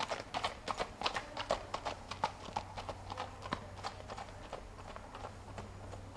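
Hoofbeats of a ridden Missouri Fox Trotter filly on hard-packed ground: an even clip-clop of about three to four strikes a second. The hoofbeats grow fainter over the last couple of seconds as the horse moves away.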